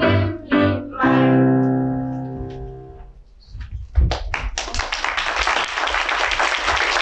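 Music ends on a long held note that fades out over a couple of seconds. About four seconds in, a theatre audience starts applauding, a few first claps and then steady clapping.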